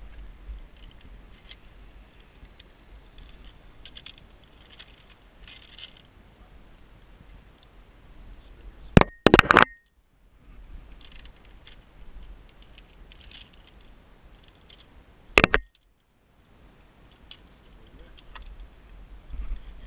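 Metal carabiners and zipline trolley hardware clinking and jangling as the harness is clipped onto the line. There are two loud sharp knocks about halfway through and another about three-quarters through, as the hardware knocks close to the microphone.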